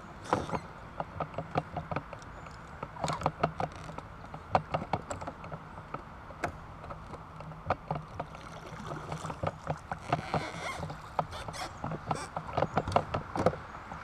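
Kayak being paddled: a double-bladed paddle dipping and splashing in the water, with many sharp, irregular knocks and clicks of the paddle and gear against the hull, and a brief splashy patch about two-thirds of the way through.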